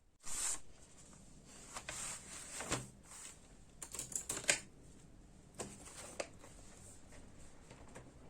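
Faint clicks, taps and rustles of small objects being handled at a desk, like keys being pressed and things being picked up and set down. There is a brief rustle at the start and a quick run of clicks about four seconds in.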